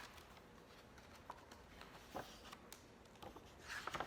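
Near silence: room tone, with a few faint soft clicks and a brief soft rustle near the end.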